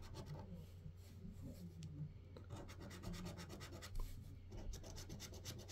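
Faint, quick repeated scraping strokes as the silver latex coating is scratched off a lottery scratchcard.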